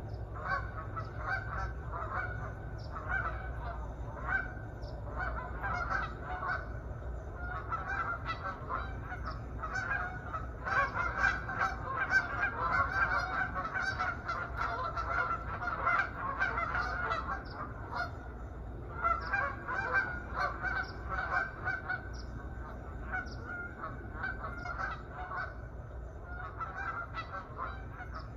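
A flock of geese honking, many short calls overlapping throughout, busiest in the middle with a brief lull about two-thirds through. A steady low rumble runs underneath.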